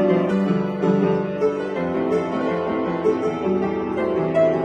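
Piano being played: melody over chords from a medley of Japanese children's songs, the notes changing in a steady rhythm.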